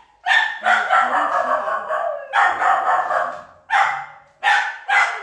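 Dog barking, about six high-pitched barks, one of them drawn out into a long yowl about a second in.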